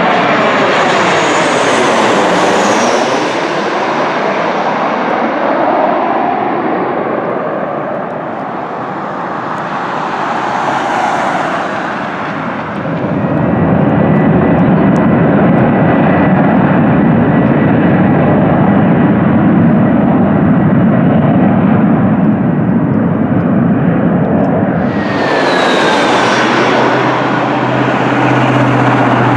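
Southwest Airlines Boeing 737 jet engines as the airliner passes low overhead on final approach, the sound sweeping down as it goes by. A loud, steady low rumble follows as it rolls out on the runway after landing. Near the end a Spirit Airlines Airbus A320 approaches with a rising roar and a falling whine.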